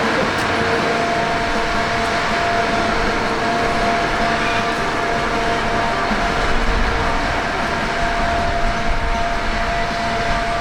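Mist-spraying fan running steadily, a constant whir with a faint hum.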